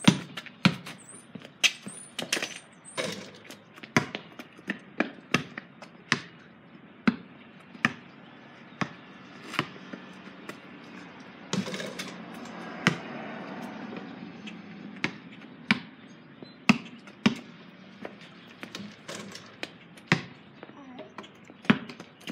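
Basketball bouncing on a concrete driveway: a string of sharp, separate thuds, one or two a second, as the ball is dribbled and shot. About halfway through there is a longer, noisier stretch as a shot reaches the hoop.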